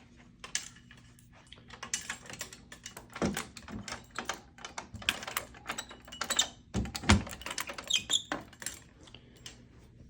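Irregular clicking, tapping and clattering of hard parts being handled, with a couple of heavier knocks about three seconds and seven seconds in.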